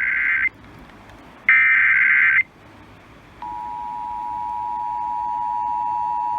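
Emergency Alert System signal for a fire warning, received over FM radio. The warbling data burst of the SAME header ends just after the start, and a second identical burst of about a second follows after a short gap. About halfway through, the steady two-tone attention signal (853 and 960 Hz) begins and holds.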